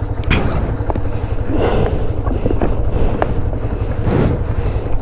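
Wind buffeting the microphone, with rustling, scraping and small clicks as a motorcycle tank bag is unzipped and rummaged through.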